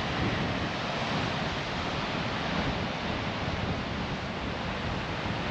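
Steady wash of ocean waves breaking on a beach, with wind rushing over the microphone.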